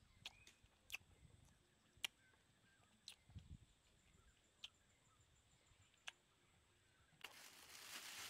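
Thin plastic bag of rambutans rustling as a hand reaches into it. It starts about seven seconds in and is the loudest sound. Before that it is near silent, with a few faint sharp clicks.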